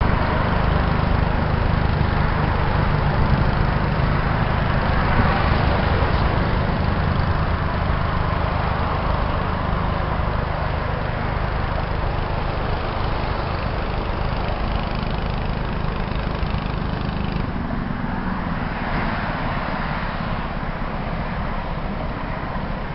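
Steady motor-vehicle engine and traffic rumble with a broad hiss. A low hum is strongest in the first half and eases slightly toward the end.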